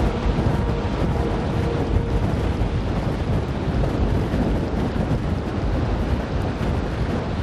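Lava fountain of an erupting Mount Etna: a steady, deep rumbling rush of noise that goes on unbroken.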